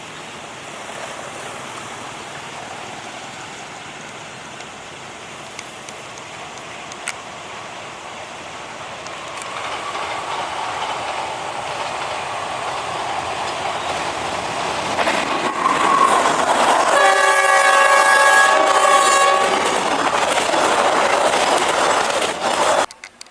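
Diesel train approaching and passing, its engine and wheel noise growing steadily louder, with the locomotive's horn sounding one long blast of about two and a half seconds about seventeen seconds in. The sound cuts off abruptly near the end.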